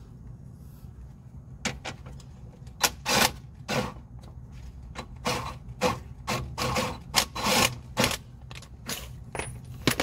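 Cordless 1/2-inch impact wrench hammering in about a dozen short trigger bursts on the strut-to-steering-knuckle bolts of a Subaru WRX's front suspension.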